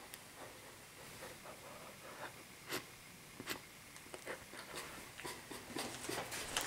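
Faint rustling with scattered sharp crackles that come thicker near the end: shiny foil gift wrap and clothing shifting as two people move into a hug.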